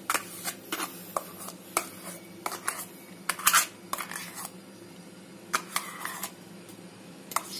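Ground urad dal batter being scraped and tapped out of a steel mixer-grinder jar into a steel bowl: irregular metal clicks and short scrapes, the loudest cluster about three and a half seconds in.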